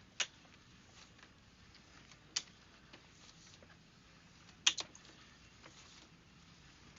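Quiet background with a few short, sharp clicks: one near the start, one a little over two seconds in, and a close pair about two-thirds of the way through.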